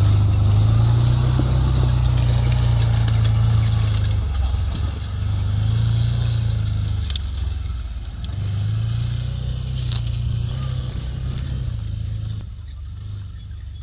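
Off-road buggy engine revving as it drives an off-road course, a low drone that rises and falls in about three long swells and grows fainter near the end.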